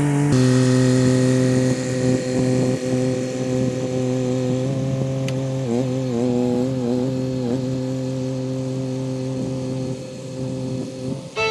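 Kymron XH20D mini-excavator's engine running steadily at working throttle, its pitch wavering and dipping briefly about six seconds in as the hydraulics take a load.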